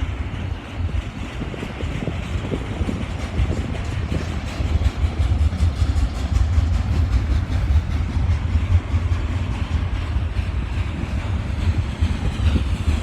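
Long freight train of stacked container cars rolling slowly past, a deep steady rumble with irregular knocks and clunks from the wheels and cars that sounds like drums.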